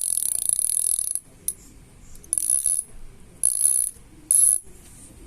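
Sagmit EVO3 bicycle hub freewheeling, its six pawls clicking over a 72-point engagement ring so fast that they blur into a high buzz. It comes in separate spins that start and stop: one lasting about a second, a single brief tick, then three shorter spins about a second apart.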